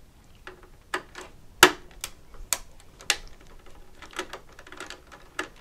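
A screwdriver working small screws on the metal shields and chassis of a Tektronix 468 oscilloscope: a dozen or so irregular sharp metal clicks and ticks, the loudest about a second and a half in.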